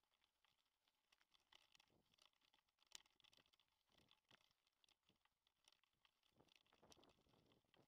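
Near silence, with faint scattered clicks and rattles from a bike jolting over a dirt track.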